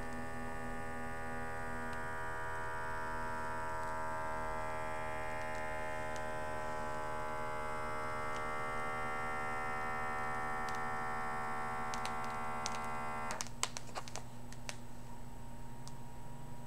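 Automatic blood pressure monitor's small air pump running steadily as it inflates the arm cuff, its pitch shifting partway through. It stops abruptly about 13 seconds in with a quick cluster of clicks.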